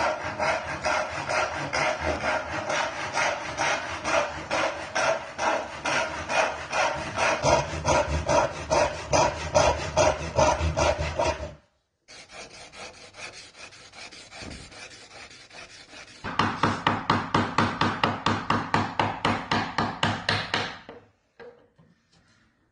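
Hand saw cutting dovetails in rosewood, with steady back-and-forth strokes about two or three a second. The strokes break off about halfway through, go on faintly for a few seconds, then return loud and stop shortly before the end.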